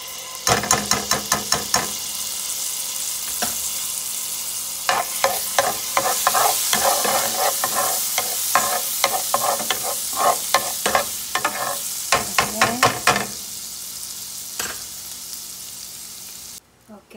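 Minced garlic sizzling in foaming melted butter in a nonstick frying pan, stirred with a spoon in quick scraping strokes. The stirring comes in two spells and stops a few seconds before the end while the sizzling goes on.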